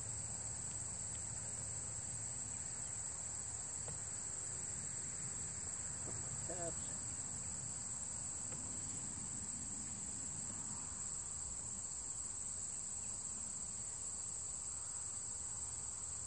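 Steady chorus of insects, a continuous high-pitched trill that does not change.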